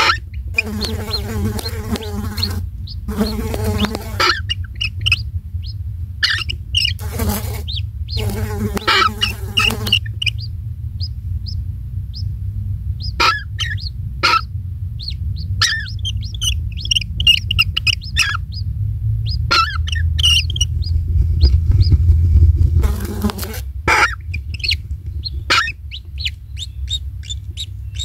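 Short, high bird chirps and calls, repeated irregularly and at times in dense clusters, over a steady low rumble.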